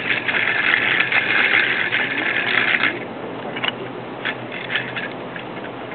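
Small die-cast toy car rolling on its wheels over rough concrete, a rattling scrape for about three seconds, then a few light clicks.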